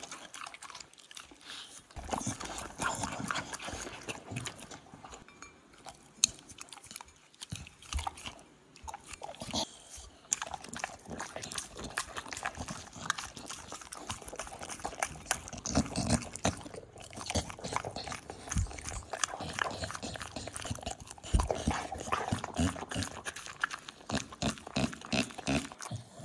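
A dog chewing and eating pizza: many short, irregular bites and crunches, quieter for the first couple of seconds.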